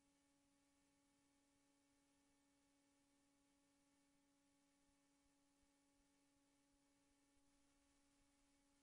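Near silence: faint hiss with a steady, very faint tone.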